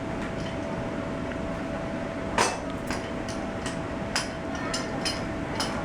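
Metal tools and parts clinking and knocking during assembly work: one sharp knock, then a string of lighter clicks and clinks, over a steady background hum.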